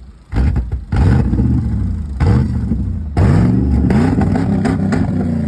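Pickup truck engine struggling to start, firing up in four short surges whose revs climb each time, with loud bangs among them. The engine is misfiring and backfiring.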